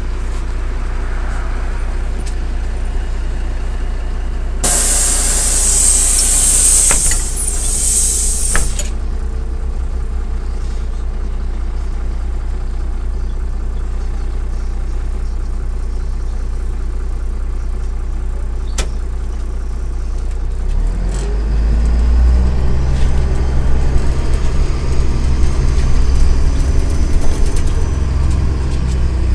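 MAZ-103 city bus heard from inside the cabin: the engine idles at a stop, and a loud hiss of compressed-air pneumatics about five seconds in lasts some four seconds. About two-thirds of the way through the engine speeds up and gets louder as the bus pulls away.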